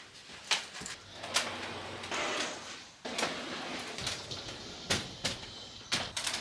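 Sliding wardrobe door rolling along its track, with several sharp clicks and knocks.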